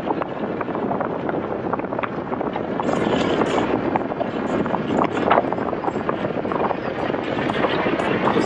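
Motorcycle riding at speed: steady wind rush over the microphone mixed with engine and road noise, with scattered small crackles.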